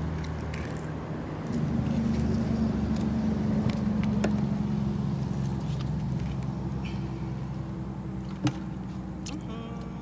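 An engine running with a steady low hum that grows louder about a second and a half in, then slowly fades, like a passing vehicle. A few sharp clicks and taps sound over it.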